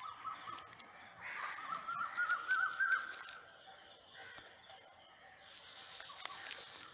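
An animal crying out outdoors: one wavering, slightly rising call starting about a second in and lasting about two seconds, then quieter background.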